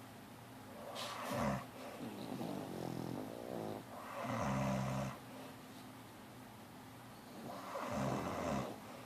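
Snoring from two sleepers: long snore breaths about a second and a half in, about four to five seconds in (the loudest), and near the end, with a softer rattling snore between the first two.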